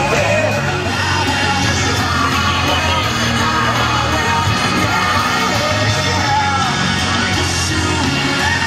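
A song with a singing voice over a steady bass line, playing loudly.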